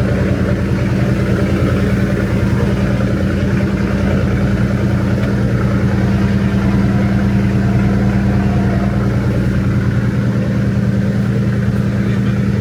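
An engine running steadily at an even pitch, with a constant low hum.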